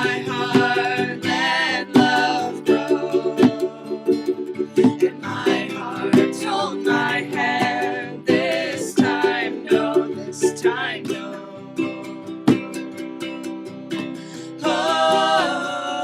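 Music: strummed and picked acoustic string instruments, ukulele or guitar, playing the song's chords, with a melody line over them and no sung words.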